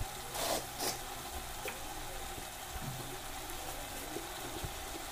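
Spices and onion-ginger-garlic masala frying in hot oil in a kadhai, a steady sizzle, with two brief louder bursts a little under a second in.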